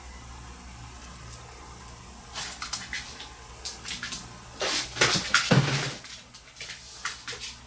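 Light handling noise from small jewelry tools and parts on a work table: a run of short clicks and rustles starting about two seconds in, busiest around five seconds, over a steady low hum.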